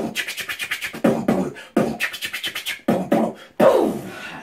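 Vocal beatboxing used as conversation: quick strings of mouth-made hi-hat hisses, kicks and snares in short phrases that break off about every second, like sentences of speech, with a falling sweep near the end.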